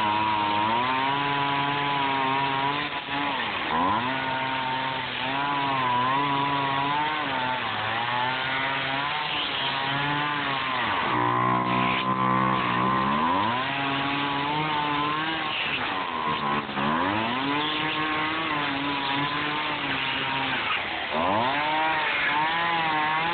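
Gas chainsaw cutting through a block of expanded polystyrene foam, its two-stroke engine running at high revs with the pitch sagging and recovering several times under load. About halfway through the engine drops toward idle for a second or two, then revs back up in a rising glide.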